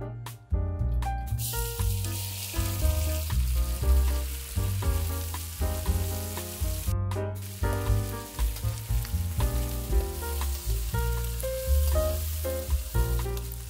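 Diced pork sizzling as it fries in hot oil in a wok, the sizzle starting about a second and a half in and cutting out briefly about halfway. Background music plays throughout.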